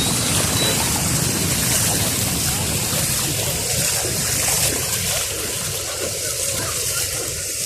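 Floodwater rushing, a steady dense noise that eases slightly in the second half.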